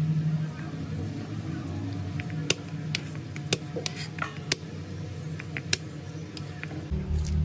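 Kitchen knife chopping garlic cloves on a plastic cutting board: scattered sharp, irregular taps of the blade striking the board, starting about two seconds in, over a low background hum.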